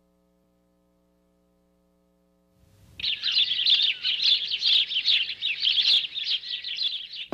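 Near silence with a faint hum for about the first two and a half seconds, then many small birds chirping busily in a dense chorus of short, high chirps.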